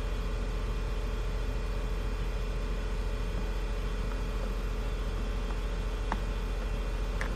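Steady low hum with hiss, unchanging throughout, and two faint light clicks of clear acrylic pieces being handled, about six and seven seconds in.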